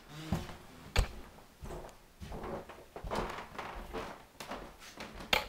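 Handling noise from a handheld camcorder carried down a hallway and through a doorway: irregular bumps and rustles, with a sharp click about a second in and another near the end that are the loudest.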